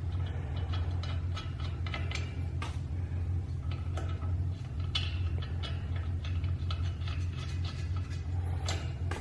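Scattered light metallic clicks and taps of nuts, washers and Allen bolts being handled and threaded on while the arms of an air bike are bolted on, over a steady low hum.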